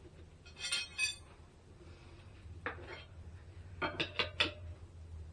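Metal tire levers clinking against a motorcycle wheel rim as the last of the tire bead is worked on: one sharp clink near the middle, then a quick run of four. A short rattly hiss comes just before, under a second in.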